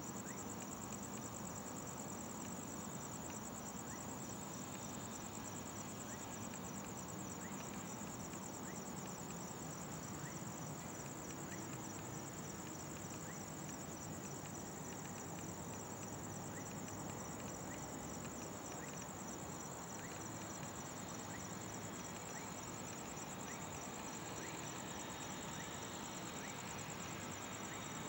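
Crickets trilling steadily in a high, rapid pulsing chorus over a faint, even low rumble.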